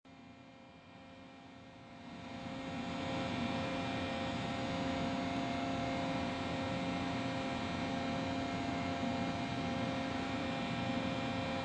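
Steady electrical and mechanical hum of a powered-up Miyano CNC lathe, a low tone with several higher steady tones above it, swelling in over the first three seconds and then holding level.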